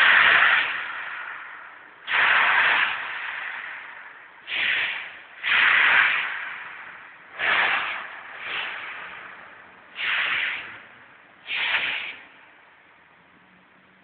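Repeated sharp hisses of air, about eight in the span, each starting suddenly and fading away over a second or two.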